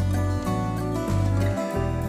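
Background music: a steady instrumental track whose notes change about twice a second over a strong bass line.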